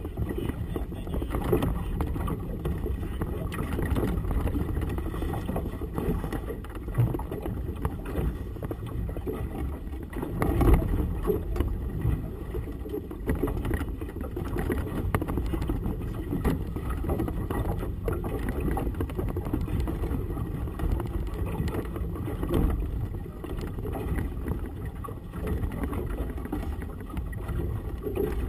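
Gusty wind rumbling and buffeting on the microphone, with choppy water sloshing and slapping against the boat's hull in uneven surges.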